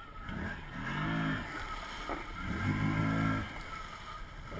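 ATV engine revving in three bursts, each rising and then holding for about a second, over water sloshing.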